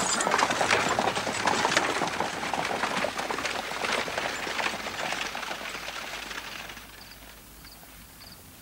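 A horse-drawn coach driving away: hooves clopping and wheels rattling. The sound fades steadily and is faint after about seven seconds.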